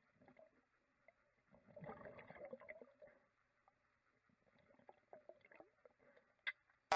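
Faint, muffled gurgling and sloshing of pool water with scattered small clicks, a little denser about two seconds in. A loud cartoon boing sound effect cuts in at the very end.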